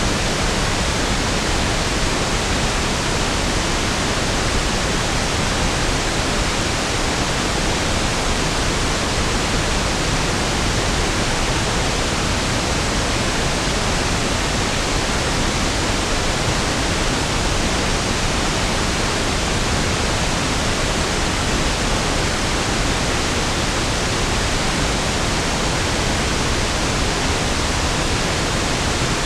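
Steady pink noise (1/f noise): an even, unbroken hiss with equal energy per octave, softer and smoother than white noise.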